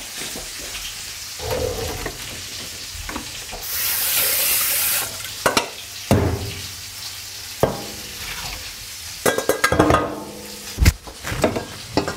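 Char fillet frying in a pan, a steady sizzle. About three and a half seconds in, a loud rush of water lasts about a second and a half as the black rice is drained. Knocks and clatter of pots and metal utensils follow, with a heavy thump near the end.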